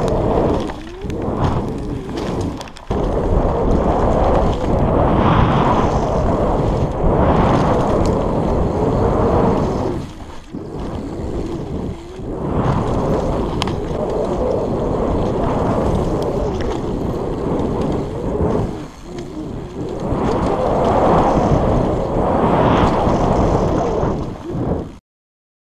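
Downhill riding on a Nukeproof Scalp mountain bike over a dirt trail: wind rushing over a helmet-mounted action camera's microphone, mixed with tyre noise and bike rattle, swelling and dipping with speed. It cuts off abruptly near the end.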